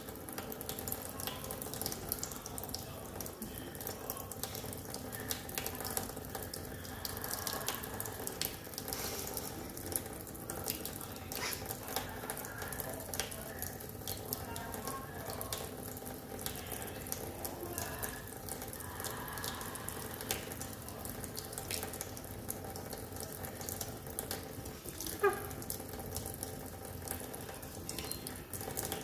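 Tap water running steadily into a sink, splattering irregularly as a cat paws at the stream. Near the end comes one short rising squeak.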